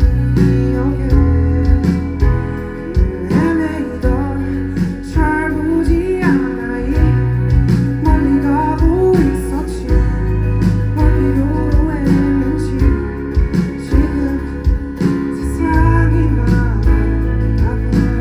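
Live band music with guitar, bass and regular drum hits, carrying a melody line over them.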